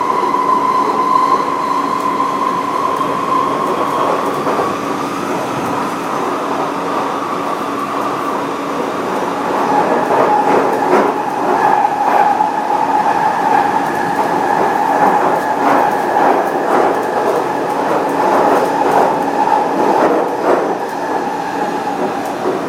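Continuous mechanical running noise with a held high tone that drops slightly in pitch about nine seconds in, and many irregular clicks and knocks that grow denser in the second half.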